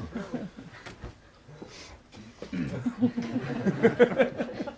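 A performer's wordless vocal sounds through a microphone. After a quieter second or so, the voice comes in about halfway through, sliding up and down in pitch.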